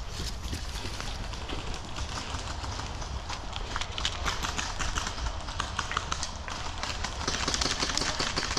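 Quick irregular clicking steps and gear rattle of a player on the move, over a steady low rumble of wind on the microphone. The clicks get denser near the end.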